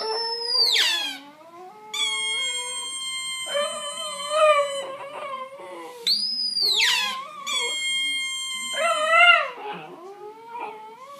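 Italian greyhound howling in wavering, rising-and-falling tones, against high squeaky whistles that swoop up and down and are held for a few seconds at a time.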